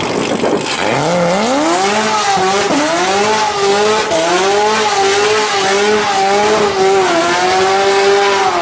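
Car doing a burnout: the engine revs up about a second in and is held high, wavering, while the spinning rear tyres screech. The sound cuts off suddenly at the end.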